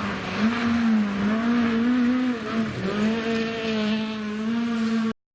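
Ford Fiesta R2 rally car's engine running hard on a stage, its pitch climbing and dipping repeatedly as the throttle is worked. The sound cuts off suddenly near the end.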